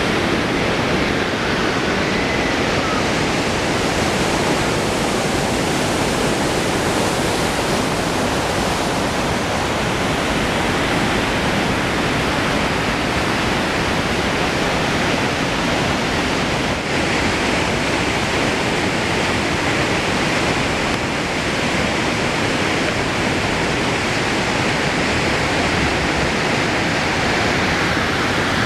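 Steady rushing roar of the Dudhsagar waterfall, even and unbroken.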